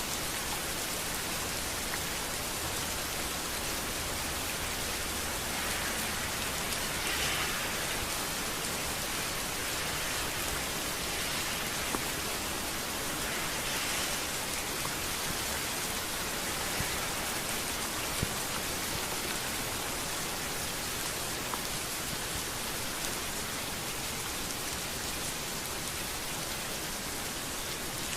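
Steady rain falling on a street: an even hiss of rainfall with a few brief swells and scattered sharper drop ticks.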